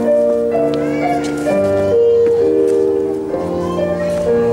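Music with sustained keyboard chords that change about once a second.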